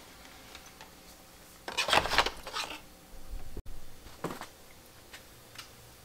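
Handling noise as a camera is picked up and moved across a cluttered workbench: a burst of clattering and knocking about two seconds in, a single sharper knock about four seconds in, and a few light ticks.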